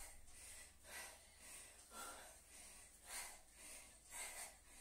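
A woman's faint, sharp breaths, about two a second, in time with punches thrown with light dumbbells: hard breathing from exertion.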